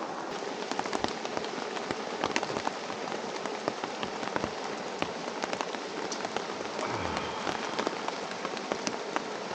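Steady rain falling, with individual drops landing close by as irregular sharp taps over an even hiss.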